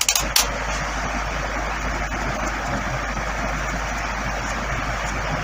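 Steady rushing background noise, with a few sharp clicks at the very start.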